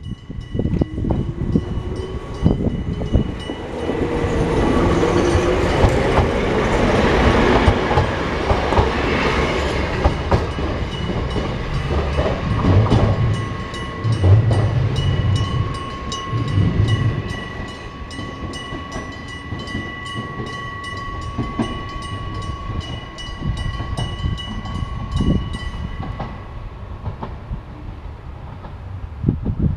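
Electric bell of a railway level crossing ringing steadily while a train passes, its wheels clattering over rail joints. The bell stops about four seconds before the end.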